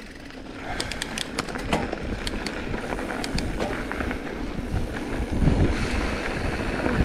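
Mountain bike riding over a dirt singletrack trail, with a steady low rumble of tyres and wind on the bike-mounted mic. A run of sharp clicks and rattles from the bike going over bumps starts about a second in.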